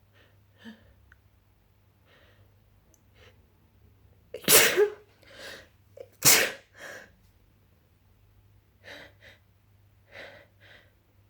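A person sneezing twice in quick succession, a loud sharp sneeze about four and a half seconds in and another a couple of seconds later, during a sneezing fit. Short quick breaths come before, between and after the sneezes.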